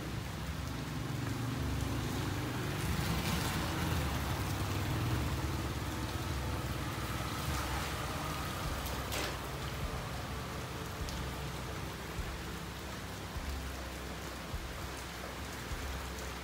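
Steady rain falling on a street, with a motor vehicle's engine running nearby under it, loudest around the middle.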